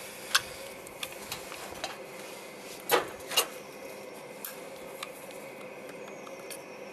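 Sharp clicks and knocks of hard plastic as a black plastic waste pipe and an orange plastic-pipe cutter are handled, with two louder knocks close together about three seconds in.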